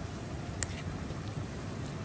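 Hands kneading soft, buttered bread dough in a bowl: faint squishing over a steady low background rumble, with one sharp click about half a second in.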